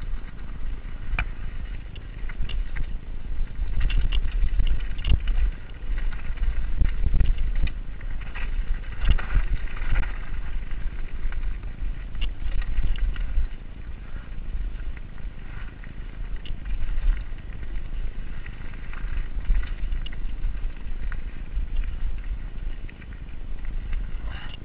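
Wind rumbling on the GoPro's microphone as a Giant Reign mountain bike descends a dirt single track, with the tyres running over the trail and the chain and frame rattling in sharp clicks and knocks over bumps.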